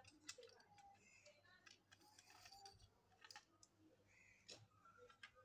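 Faint, scattered plastic clicks and small rattles as a hair trimmer's housing and circuit board are handled and pulled apart.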